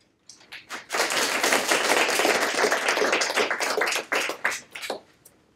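Small audience applauding: a few scattered claps, then about three seconds of steady clapping that thins out to single claps near the end.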